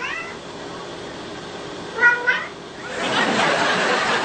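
Domestic cat meowing: a short meow at the start, then a louder two-syllable meow about two seconds in, in answer to being coaxed to "say mama". A dense wash of noise rises near the end.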